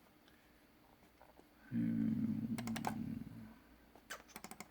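Two quick runs of clicking on a computer keyboard, a few clicks each, the first about halfway through and the second near the end. Between them a man gives a drawn-out hum that fades away.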